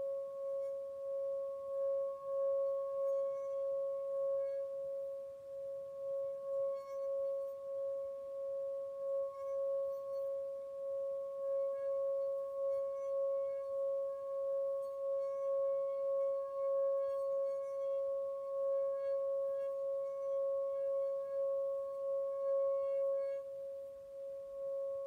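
Brass singing bowl sung by rubbing a wooden mallet around its rim: one steady ringing tone with a fainter higher overtone, wavering in loudness as the mallet circles, with faint rubbing of the mallet on the metal. The tone softens a little near the end.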